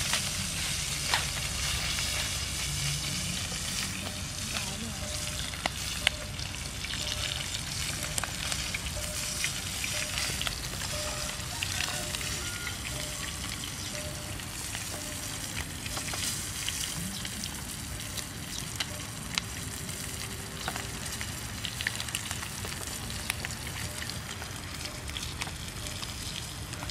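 Whole fish frying in hot oil in a frying pan on a portable gas stove, sizzling and crackling steadily, with occasional sharp clicks.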